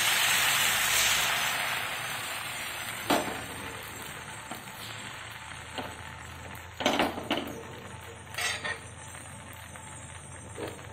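Thin rice batter for neer dosa sizzling as it hits a hot, oiled pan. The sizzle is loudest in the first two seconds and dies down gradually as the batter sets, with a few light knocks about three, seven and eight and a half seconds in.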